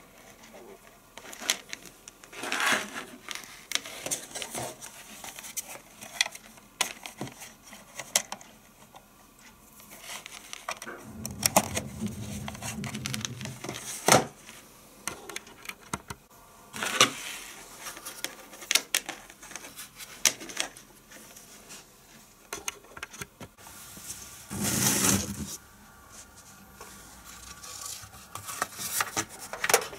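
Hands handling a power adapter's cable and a plastic router on a wooden desk: scattered clicks, knocks and rustles, with a sharp click about halfway through and a longer rustle near the end.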